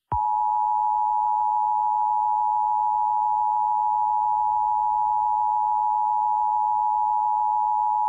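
Emergency Alert System attention signal: a steady two-tone alarm held unchanged for about eight seconds, then cut off abruptly.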